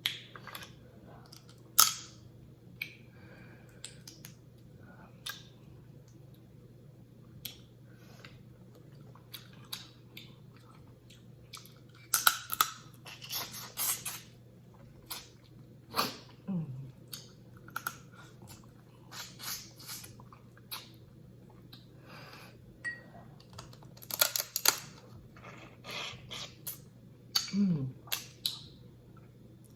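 Close-up eating noises from a seafood boil of blue crabs: irregular wet smacking, sucking and cracking bursts, busiest in clusters in the middle and towards the end, with a couple of short falling hums.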